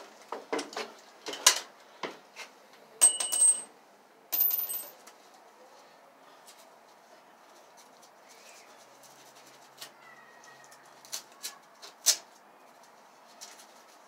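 Scattered clicks and light knocks of small metal parts being handled, with a brief high metallic ring about three seconds in. A few more clicks come near the end.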